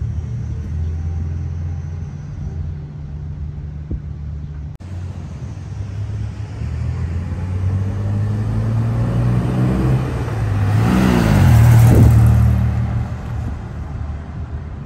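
1962 GMC panel truck's original 305 V6 engine running as the truck drives along the road. About eleven seconds in it passes close by: the engine grows loudest and its note drops in pitch as it goes past, then fades as it drives away.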